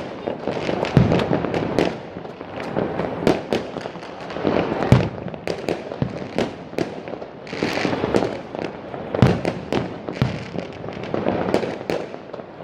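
Aerial fireworks bursting: a run of irregular bangs with crackling in between, the loudest reports about 1, 5 and 9 seconds in.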